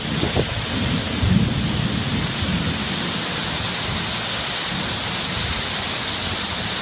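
Heavy rain pouring steadily, with a low rumble of thunder in the first couple of seconds that fades away.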